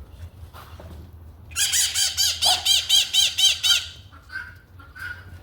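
A bird giving a rapid series of harsh, high-pitched squawking calls, about five a second for a couple of seconds, starting about a second and a half in, followed by a few fainter single calls near the end.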